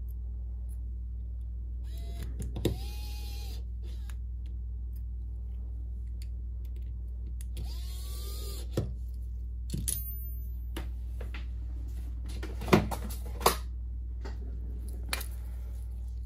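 Electric precision screwdriver running in two short spells, its small motor spinning up and winding down, as it drives the screws back into a Samsung Galaxy Note 9's midframe. Several sharp clicks and taps follow, over a steady low hum.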